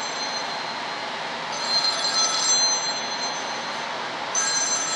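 A machine running steadily with a hiss and a high whine, growing louder briefly twice.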